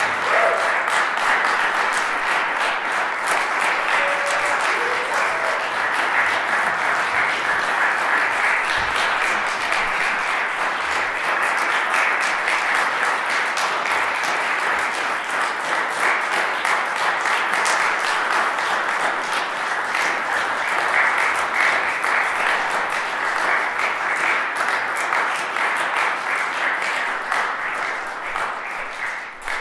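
Audience applauding steadily, dense and sustained, dying away right at the end.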